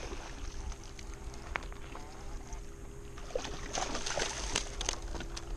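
A hooked black bass splashing and thrashing at the water's surface near the shore, over a steady low wind rumble on the microphone. The splashing gets busier in the second half.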